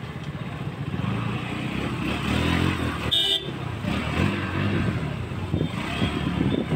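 KTM Duke 200 single-cylinder engine running at low speed in slow street traffic, with a short horn beep about three seconds in.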